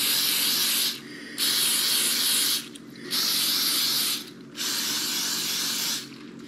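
Aerosol butter-flavoured cooking spray hissing from the can in four bursts of about a second each, sprayed into the cups of a metal muffin tin.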